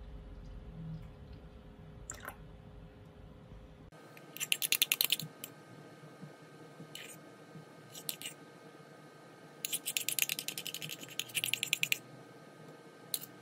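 Metal spoon scraping and clicking against a ceramic bowl, scooping out thick whipped dalgona coffee foam. The sound comes in several bursts of rapid clicking, starting a few seconds in.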